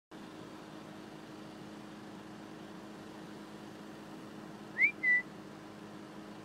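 A walk-behind lawn mower's engine running steadily in the background; about five seconds in, a short, loud two-note whistle cuts over it: a quick rising note, then a brief held one.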